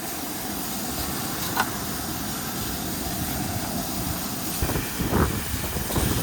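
Thin-sliced fajita meat sizzling steadily in a hot pan with no oil. There is a sharp click about a second and a half in, and a few knocks near the end.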